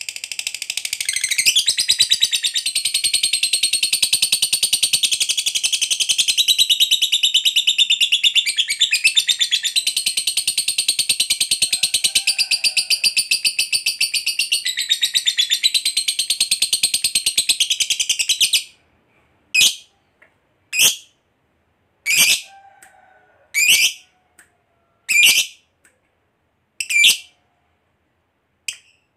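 Lovebird singing a long, continuous, rapid high-pitched chattering trill (the 'ngekek panjang' prized by keepers) that runs for about eighteen seconds, then breaks off abruptly. It is followed by a string of single sharp calls, about one every second and a half.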